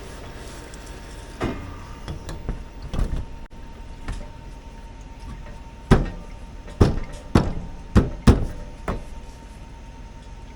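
Hand work on an air handler's blower motor and its wiring: a string of sharp knocks and clicks, irregular and clustered about six to nine seconds in, over a steady faint hum.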